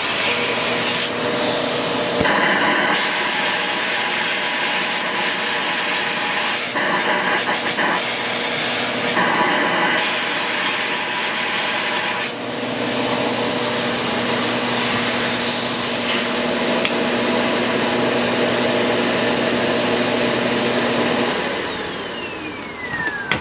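Shark vacuum cleaner's motor running loud, its sound changing abruptly several times as the airflow is plugged up: the noise a clogged vacuum makes. Near the end it is switched off and its whine falls in pitch as the motor spins down.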